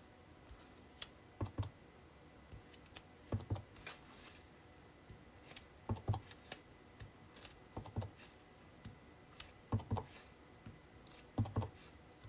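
Clear acrylic block with a photopolymer stamp being inked and pressed onto cardstock over a piercing mat. It makes soft clicks and knocks, often in pairs, about every two seconds as the stamp goes from ink pad to paper again and again.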